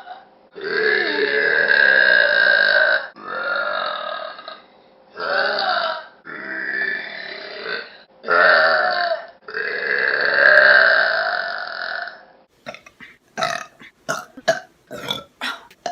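A woman burping loudly, six long, drawn-out belches one after another, the first lasting about two and a half seconds. In the last few seconds comes a quick run of short, sharp sounds.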